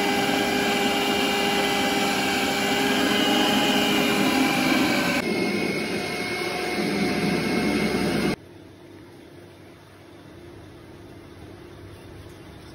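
Bajaj food processor's motor running at speed, a loud steady whine mixing flour for dough. About five seconds in the sound changes character. A little after eight seconds it drops to a much quieter steady hum.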